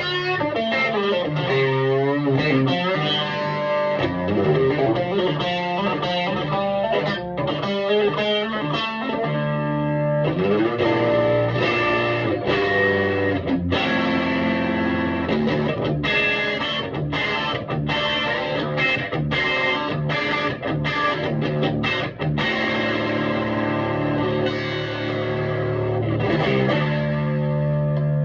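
Electric guitar played through a Vintage Sound Amp guitar amplifier, mixing ringing chords with single-note lines and sharp strummed chord hits.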